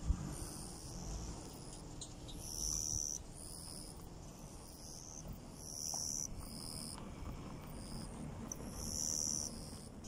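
Insects calling from summer grass in repeated high trills about half a second long, with wind rumbling on the microphone.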